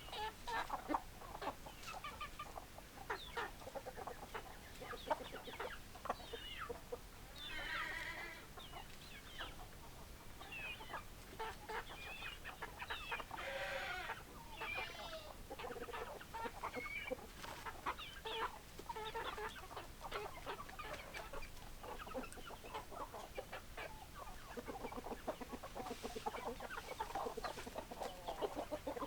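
Chickens clucking: a steady stream of short clucks, with a few longer, drawn-out calls about a quarter of the way in and again near the middle.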